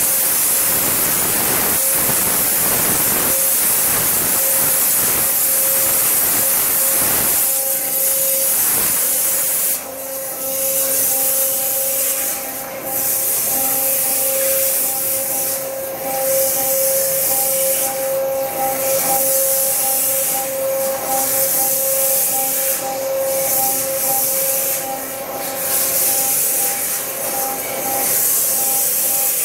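Flow Mach 3 CNC waterjet cutting, its high-pressure jet hissing loudly over a steady machine whine. From about ten seconds in, the hiss dips briefly every two to three seconds.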